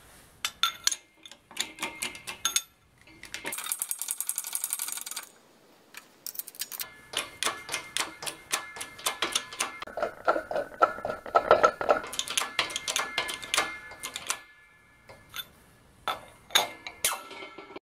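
Wheel stud being pressed into an ATV wheel hub with a hydraulic shop press: a string of sharp metallic clicks and clacks. A fast, even ticking run comes about three and a half seconds in, and a dense stretch of clacking from about seven to fourteen seconds.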